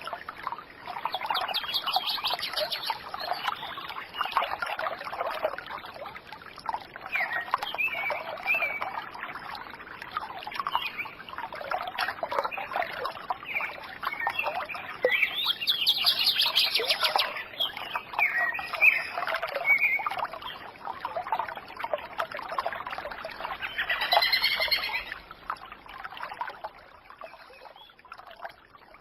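Water trickling and splashing, as from a small stream, with birds chirping over it at intervals.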